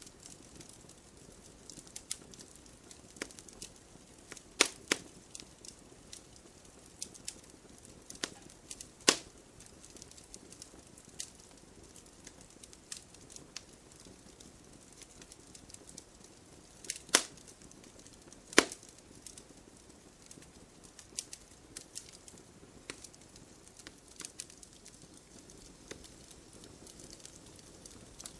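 Wood fire burning, crackling steadily with scattered sharp pops, a few much louder snaps among them, over a soft low hiss.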